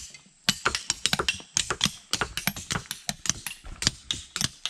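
Rapid, irregular sharp clicks and knocks of small hard objects, several a second, starting about half a second in.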